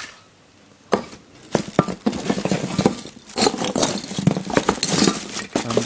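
A hand rummaging through a plastic carrier bag of Christmas ornaments: the bag crinkles and rustles while the baubles and decorations clink and knock against each other. It starts about a second in, after a moment of quiet.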